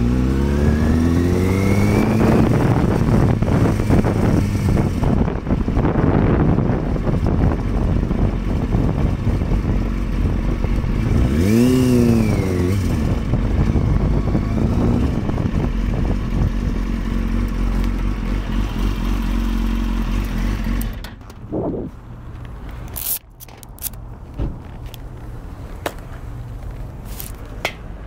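Kawasaki ZX-6RR's inline-four engine picking up revs as it pulls away, then running at low speed with a single quick rise and fall of the revs about halfway through. The engine stops about three-quarters of the way in, leaving scattered scrapes and knocks close to the microphone.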